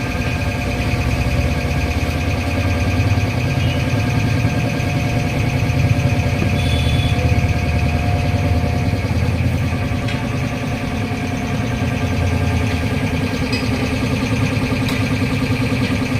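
An engine or motor running steadily with a constant low hum and steady higher tones, without changing speed.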